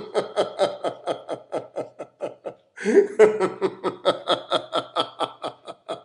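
A man laughing in long rhythmic ha-ha-ha bouts, about five pulses a second. The laughter breaks off briefly, then a fresh bout starts about three seconds in and tapers away near the end.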